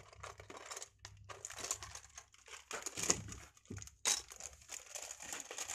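Loose plastic Lego parts being handled in a clear plastic tub: irregular clicking, clattering and crinkling of plastic, with a louder clatter about four seconds in as the tub is moved.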